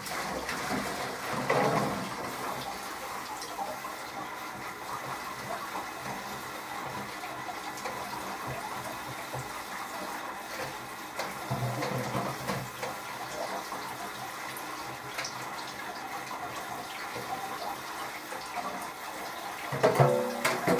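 Water running steadily from a sink tap and splashing as buckets of soaked seed are drained and rinsed, with a few louder knocks of the buckets near the start and near the end.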